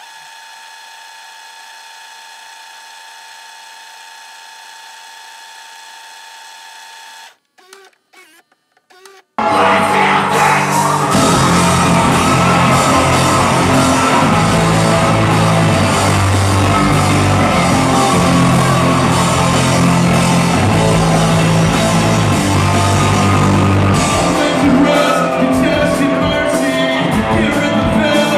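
A steady humming tone with many overtones breaks off into a couple of seconds of crackly dropouts. About nine seconds in, a loud live rock band cuts in: drums and guitar with yelled, sung vocals, recorded from the audience.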